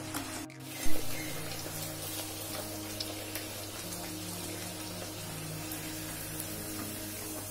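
Bhatura deep-frying in hot oil: steady sizzling and crackling of the bubbling oil, with a single sharp loud knock about a second in.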